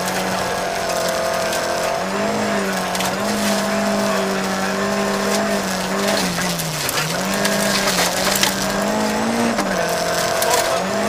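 Volvo 940 rally car's engine heard from inside the cabin, held at high revs in fifth gear on a gravel stage, over a constant hiss and crackle of gravel under the car. About two-thirds through, the revs drop sharply and climb again as the throttle is lifted and reapplied, and there is a shorter dip near the end.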